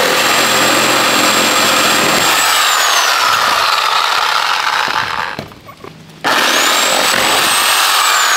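Corded reciprocating saw cutting through corrugated plastic drainage pipe. It stops about five seconds in and starts again about a second later, its motor whine rising as it spins up and sinking as it slows.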